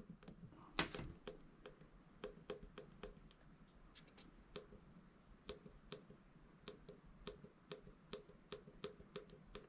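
Small plastic clicks repeated about three times a second, the loudest about a second in: presses on the controls of an inti4S light alarm clock as its light is stepped down dimmer.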